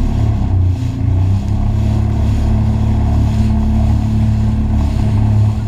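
Jet ski engine running, a low hum that settles to a steady pitch after about a second.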